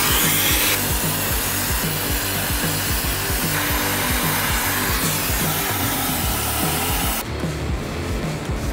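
Background music with a steady beat, over a loud rasping power-tool noise of cutting or grinding that stops abruptly near the end.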